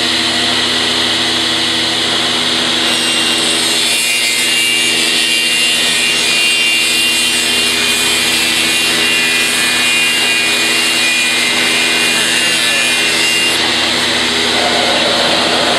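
Circular saw unit of a CNC wood router cutting lengthwise through a thick wooden panel: a steady sawing noise with a constant hum of the machine's motors underneath.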